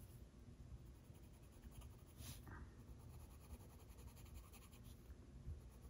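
Faint, rapid scratching of a colored pencil shading back and forth on paper, with one stronger stroke about two seconds in.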